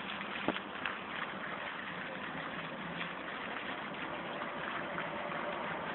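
City street traffic: a steady wash of car and bus engine and tyre noise, with a sharp click about half a second in.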